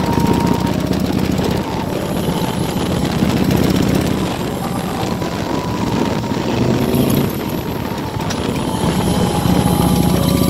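A group of motorcycles riding together, their engines running in a steady drone with a rush of road and air noise.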